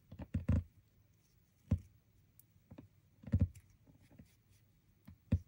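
Handling noise: a few scattered soft taps and clicks as fingers work a frayed silk ribbon and a needle, trying to push the ribbon through the needle's eye.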